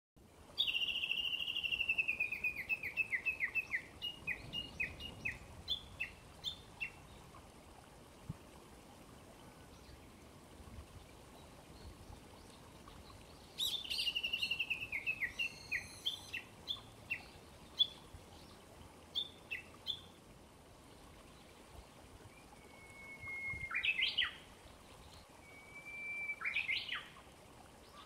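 Songbirds singing. Twice, a trilled song falls in pitch and slows into separate notes. Near the end, Japanese bush warblers give two 'hoo-hokekyo' songs, each a long held whistle ending in a quick flourish, over faint running water.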